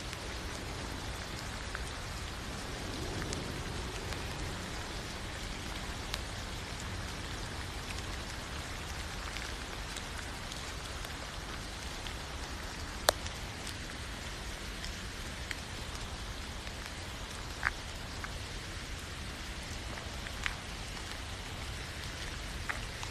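Steady rainfall, with a few louder single drops ticking sharply close by, the loudest about halfway through.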